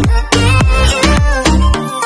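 Background music with a steady beat, a deep kick drum about twice a second under a busy melody.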